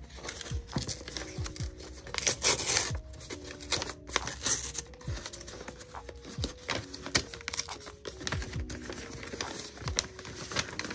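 Mailer bag crinkling and rustling as it is torn open and a boxed item is pulled out of it, in irregular bursts, over soft background music with plucked notes.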